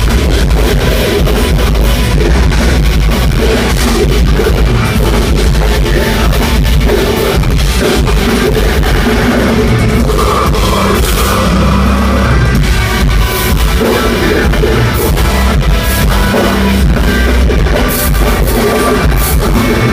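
Live metalcore band playing loud, with distorted electric guitars and a drum kit, captured on a low-quality, overloaded amateur recording.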